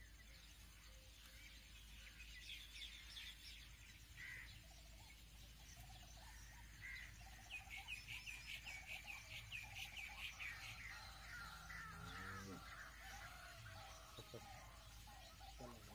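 Faint birdsong: scattered high calls, with a fast run of repeated chirps, about six a second, for a few seconds around the middle.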